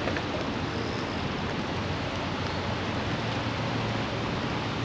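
Steady, even rushing noise of wind on the microphone and water around the kayak, with no distinct events.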